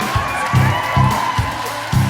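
Dance track with a heavy bass-drum beat, about two beats a second, with whoops and cheering from the audience over it.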